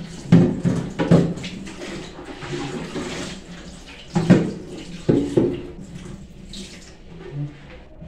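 Tap water running into a stainless steel kitchen sink while a clear plastic refrigerator drawer is rinsed and turned under it. There are sharp plastic knocks as the drawer bumps and is handled, twice in the first second or so and twice more around four to five seconds in.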